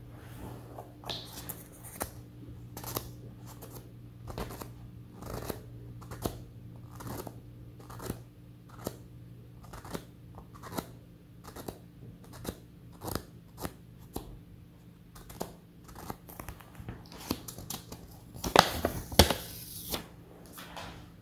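Felt-tip marker and paper handling on a sticky-note pad: short scratchy sounds about once a second, then a louder ripping sound near the end as a note is peeled off the pad.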